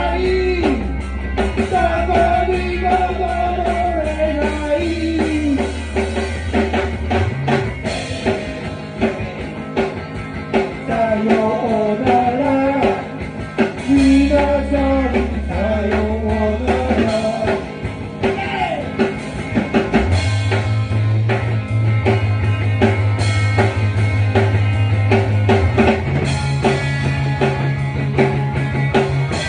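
Rock band playing: a singer's voice over guitar and a drum kit, with a bass line of long held low notes that shift every few seconds.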